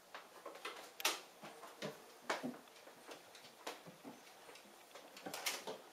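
Irregular clicks and taps as a Siamese kitten paws and leaps at slatted window blinds and lands on the wooden sill, the loudest click about a second in and a small flurry near the end.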